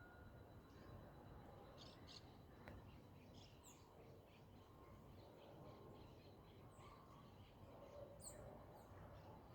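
Quiet outdoor background with scattered faint, short bird chirps, a few clustered around two seconds in and again near the end.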